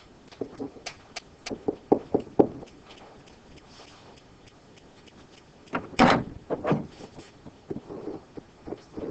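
Scattered sharp clicks and knocks in a classroom, with one louder knock about six seconds in.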